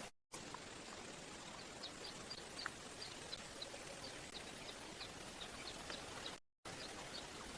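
Forest ambience: a steady faint hiss with a small bird's short high chips repeating about three times a second, broken twice by brief moments of dead silence.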